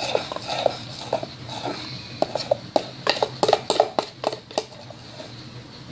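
Freshly activated glitter slime being stirred in a bowl: a utensil clicks and taps against the bowl with short sticky pops as the mixture thickens. A quick run of clicks comes in the middle, then it quietens near the end.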